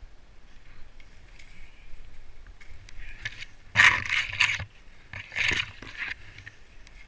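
Skis sliding through snow with light scraping, and two louder swishing bursts near the middle, the first the loudest, as snow-laden spruce branches brush against the skier.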